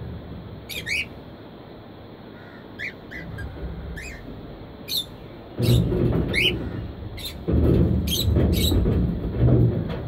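Budgerigars giving short, scattered, rising chirps. From about halfway, gusts of wind rumble on the microphone, louder than the birds.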